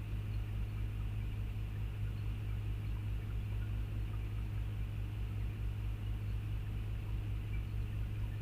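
Backhoe's diesel engine running steadily with a low, even hum and fast pulsing underneath.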